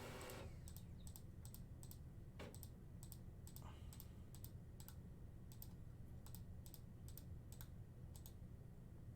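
Faint, irregular computer keyboard and mouse clicks, roughly two a second, over a steady low hum: typing out a notification to viewers.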